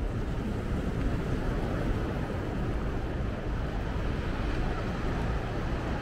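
Steady seaside ambience: wind rumbling on the microphone over the wash of the sea against a rock breakwater.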